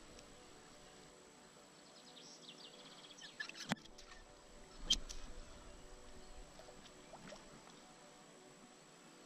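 Faint outdoor river ambience with brief bird chirps, broken by two sharp clicks about a second apart near the middle.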